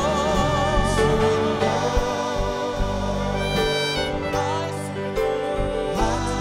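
Live gospel worship song: piano, keyboard and electric bass playing under a male solo voice, which holds a sung note with vibrato at the start.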